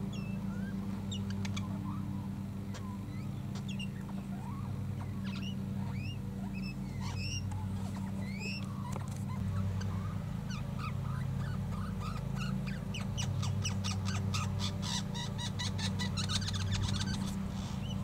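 A lawnmower engine runs steadily in the distance, with birds calling over it in short rising chirps. About two-thirds of the way in comes a fast run of clicking notes lasting a few seconds.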